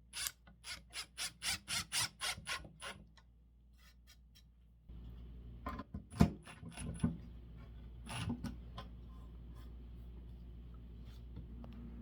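Hand-tool work on wood: a quick run of about ten rhythmic strokes, then a few scattered knocks, the loudest about halfway through.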